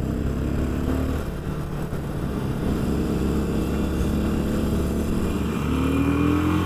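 Cruiser motorcycle engine running steadily as the bike rides at speed, its note rising near the end.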